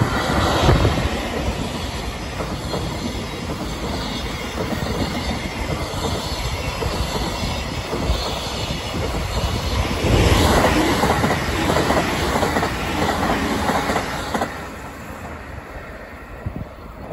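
A freight train running past at speed, an EF65 electric locomotive followed by a tank car and a long string of container flat wagons, their wheels rumbling and clattering on the rails. It grows louder again about ten seconds in and drops away over the last few seconds.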